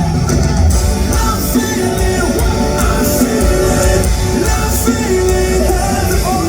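A rock band playing a song live at full volume: drums and heavy bass under guitar and a bending melodic line.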